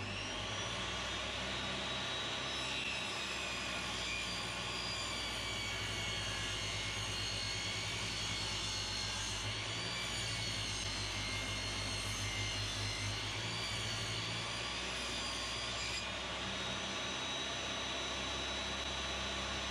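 Table saw running at speed with a steady high whine as a thin strip of wood is ripped through the blade; the whine wavers slightly midway.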